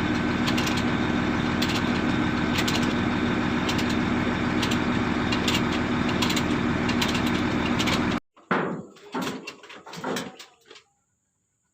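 Volvo excavator's diesel engine running at a steady idle, with a regular light ticking over its hum. The sound cuts off abruptly about eight seconds in, leaving only faint scattered sounds.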